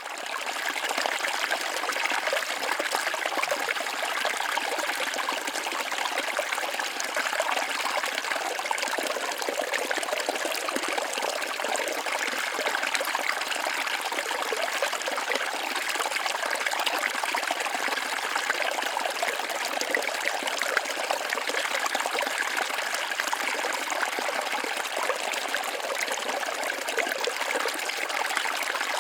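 Small waterfall splashing and trickling steadily, a continuous rush of falling water.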